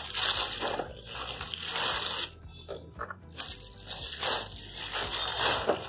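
Clear plastic wrap crinkling and rustling in repeated bursts as it is handled and pulled off a sewing machine.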